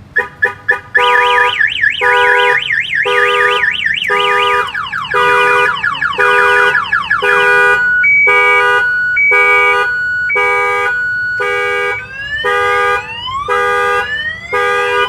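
Car alarm siren on a 2018 Ford F-350, triggered and sounding loudly. A few short chirps give way to a multi-tone siren that cycles through its patterns: a fast up-and-down warble, then a rapid trill, then alternating two-note beeps, then rising whoops, all pulsing on and off about twice a second.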